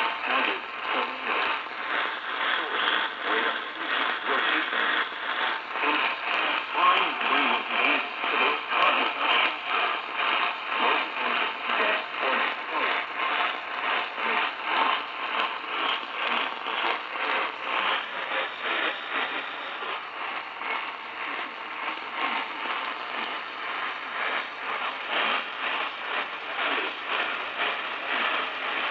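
Radio receiver static from a weak, distant signal: a steady hiss with crackle that rises and falls quickly, sounding narrow and thin.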